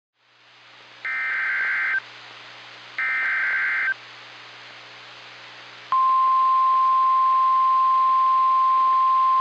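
NOAA Weather Radio alert over receiver hiss: two short SAME header data bursts about a second long each, then the steady 1050 Hz warning alarm tone starting about six seconds in. Together they signal the start of a newly issued tornado warning broadcast.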